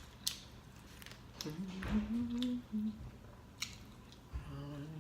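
Close-up chewing and wet mouth clicks of someone eating a steak and cheese sandwich, with a short hummed voice sound about halfway through.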